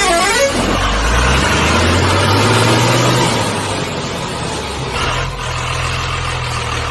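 A heavy vehicle's engine running with a steady low drone, its pitch shifting slightly about three seconds in and again near five seconds. A warbling horn-like tone fades out in the first half-second.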